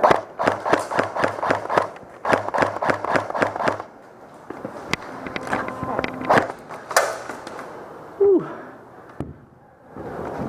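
Airsoft gun firing two rapid bursts of shots, each lasting about one and a half to two seconds, followed by a few scattered single shots or BB impacts.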